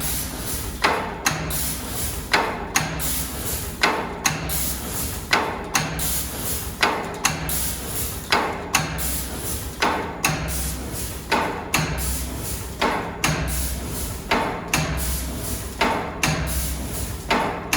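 CNC laser saw-blade tooth-cutting machine running, with sharp mechanical clacks at a regular rhythm of about one to two a second over a steady low hum and hiss.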